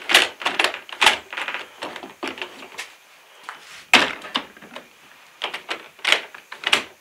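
Handle of a PVC door being worked repeatedly, its multipoint lock mechanism clicking and clattering in a series of sharp knocks. The lock does not work.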